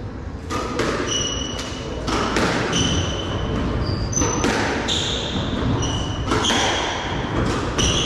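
Squash rally: repeated sharp impacts of the ball off rackets and walls, mixed with short, high squeaks of court shoes on the wooden floor.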